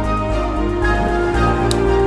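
Background music with held notes over a pulsing bass.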